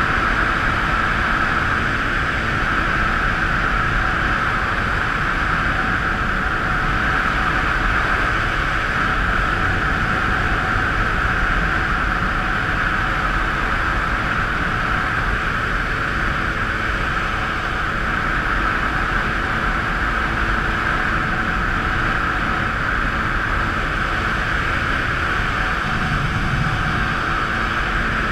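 Kawasaki jet ski running steadily at cruising speed: an even engine and jet-pump drone under a strong rushing hiss of wind and water.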